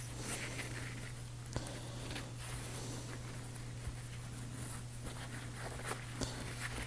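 Faint rustling and a few light clicks of small knife parts being wiped with paper towel, over a steady low hum.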